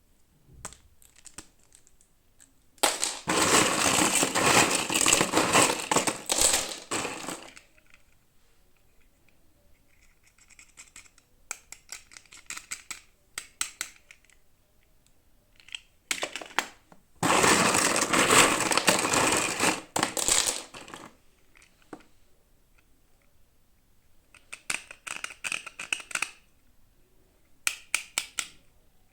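Plastic toy packaging crinkling and tearing as it is opened by hand, in two long loud spells, with small clicks and short rustles in between.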